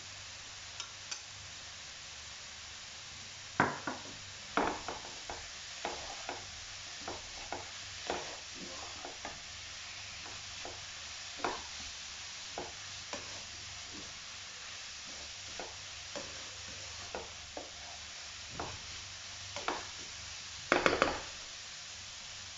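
Shredded vegetables sizzling in a wok while a spatula stirs and tosses them, knocking and scraping against the pan at irregular intervals. A quick run of knocks near the end is the loudest.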